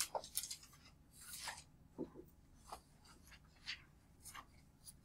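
Faint, irregular scratching of writing on paper: scattered short strokes, several over a few seconds.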